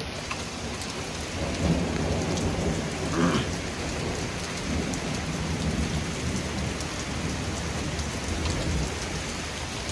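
Heavy rain falling steadily on flooded pavement, with a low rumble of thunder through most of it.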